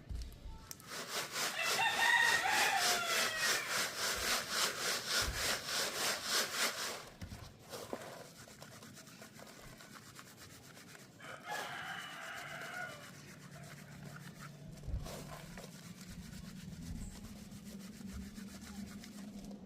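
A rooster crows twice, first about two seconds in and again about twelve seconds in. Over the first crow comes a run of loud, rhythmic rasping strokes, about three a second, that stops about seven seconds in. Later a faint low hum continues.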